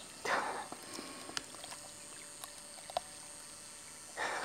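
Water splashing, two brief splashes a quarter second in and near the end, from a golden retriever moving in lake water.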